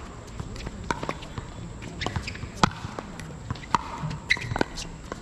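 Paddles striking a plastic pickleball during a rally: a dozen or so sharp pops at uneven spacing, some with a short ringing tone.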